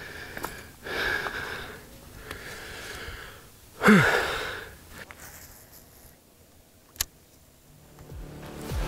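A man breathing out heavily in several noisy breaths, catching his breath after fighting a bass, with a louder voiced exhale falling in pitch about four seconds in. A single sharp click comes about seven seconds in, and music begins near the end.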